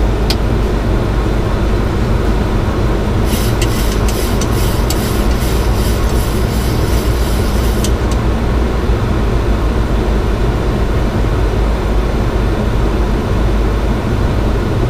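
Steady low rumble of air rushing past the Boeing 737-900 cockpit and its engines running in descent. Between about three and eight seconds in, a quick run of sharp ticks.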